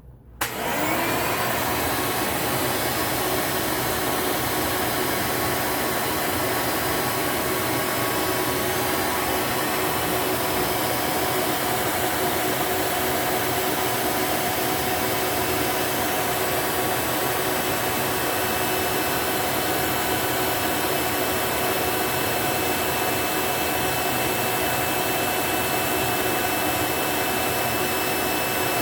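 Hoover Elite U4717-930 upright vacuum cleaner switched on with a click, its motor spinning up within a second, then running steadily at full speed, drawing air through its hose for an airflow reading.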